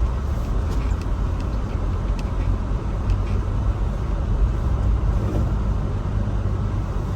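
Car driving on a snowy road: a steady low rumble of engine and road noise, with a few faint ticks.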